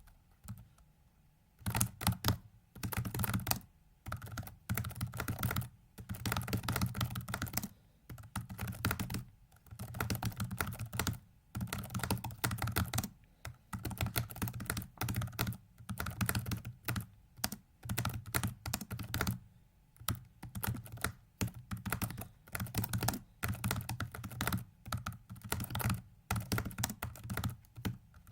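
Rapid computer keyboard keystrokes in bursts with brief pauses between them, from keyboard controls turning a virtual 4x4x4x4 puzzle during a speedsolve. The typing starts about two seconds in.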